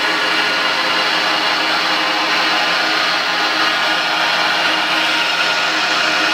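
Blanchard 18-36 vertical rotary surface grinder running under power: a steady machine hum and whine with several held tones, even in level throughout.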